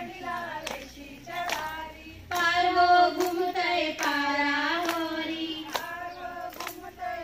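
Women singing a Marathi Bhondla folk song together, clapping their hands in a steady beat about once every three-quarters of a second as they circle. The singing grows louder about two seconds in.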